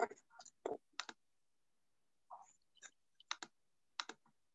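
Faint clicks of a computer mouse, a dozen or so spread unevenly, several coming in quick pairs.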